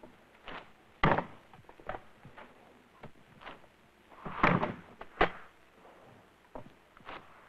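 Irregular wooden knocks and thumps of a hand screen-printing frame being set down and shifted on a long fabric-printing table. The loudest pair come about four and a half and five seconds in.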